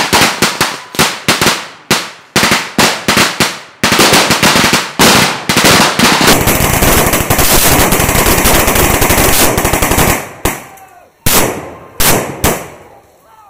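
Rifle gunfire from several soldiers firing at once: separate shots, a few a second, at first, then about six seconds of dense, continuous automatic fire, thinning back to scattered single shots near the end.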